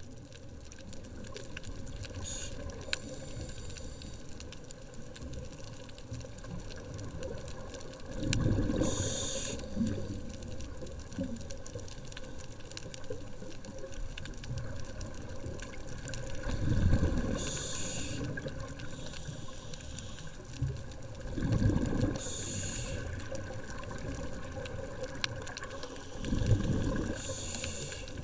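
Scuba diver's regulator breathing underwater: four breaths several seconds apart, each a rush of exhaled bubbles with a short hiss of air, over a steady underwater hiss.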